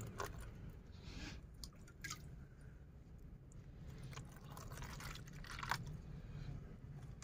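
Water trickling and dripping into clear plastic trays around potted succulents, bottom-watering the dry pots, with a few soft clicks of pots and plastic being handled.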